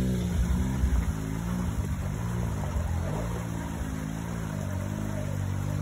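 Side-by-side UTV engine running at low speed, its pitch rising and falling with the throttle as it crawls over rock, with a few low knocks in the first second.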